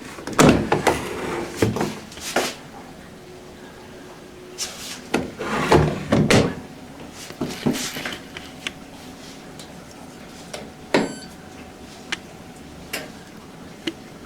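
Clunks and clicks from a front-loading washing machine's door and detergent drawer being opened and shut. They come in several bursts in the first half, then single sharp clicks, one of them about eleven seconds in.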